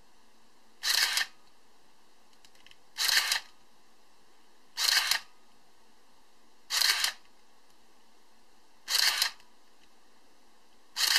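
Minolta Maxxum 7000 film SLR fired six times, about two seconds apart: each release is a short mechanical burst of mirror slap and shutter with the camera's built-in motor winding the film on.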